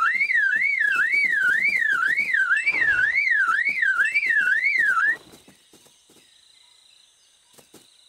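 A cartoon superb lyrebird mimicking a car alarm: a loud tone sweeping up and down about twice a second. It cuts off suddenly about five seconds in.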